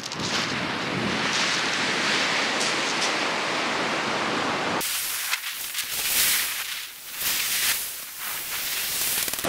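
Surf breaking and washing up a shingle beach, a steady rushing hiss. About five seconds in the sound changes abruptly to a brighter hiss that swells and falls back with the surges of the waves.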